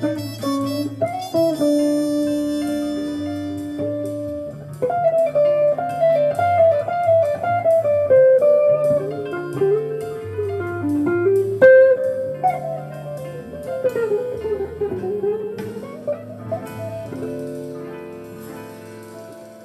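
Jazz guitar playing a slow melody over bass notes, growing softer and dying away near the end.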